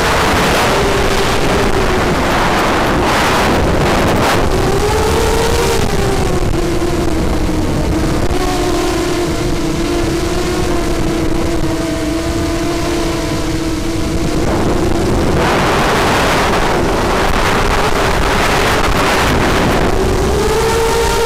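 Emax 250 FPV racing quadcopter's motors and propellers heard from the onboard camera: a buzzing whine over wind rush that rises and falls in pitch with throttle. From about six to fifteen seconds in it settles to a lower, steadier tone before picking up again.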